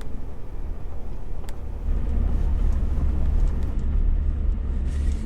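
Land Rover Discovery 3 TDV6 driving, a steady low rumble of diesel engine and road noise that grows louder about two seconds in.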